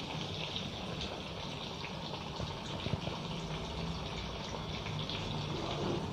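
Masala-coated fish frying in hot oil, a steady sizzle with many small crackles and pops, as the fish finishes cooking.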